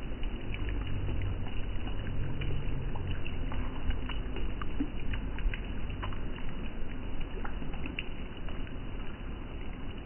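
River water flowing: a steady low rush with many small splashes and drips scattered through it.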